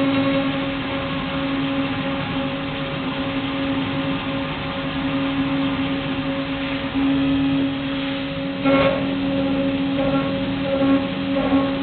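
ISEL ICP 4030 CNC milling machine cutting: a steady spindle whine with cutting noise, stepping up a little about seven seconds in. There is a brief crackling burst near nine seconds.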